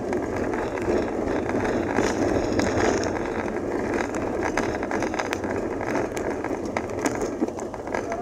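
Wheels rolling over a rough dirt-and-gravel road: a steady rumble with many small crunches and clicks.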